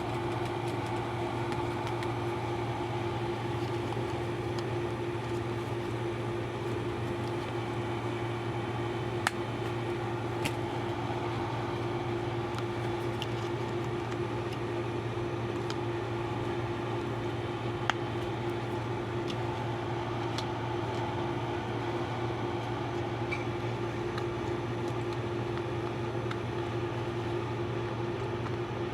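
Small electric ceiling fan running, its motor giving a steady hum with a faint whoosh of air, and a few light ticks along the way.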